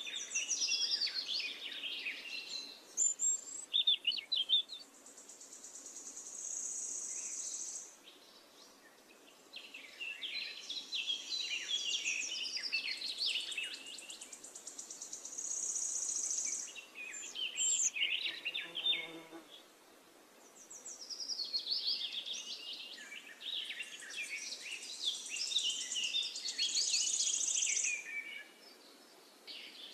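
Birds chirping and trilling in bursts several seconds long. Each burst ends in a steady, high, rapid buzzing trill, and there are short lulls about eight and twenty seconds in.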